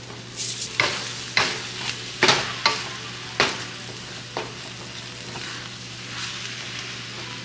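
Udon noodle and tofu stir-fry sizzling in a wok while a wooden spatula tosses it. In the first half the spatula scrapes and knocks against the pan about six times, the loudest sounds; after that the steady sizzle goes on.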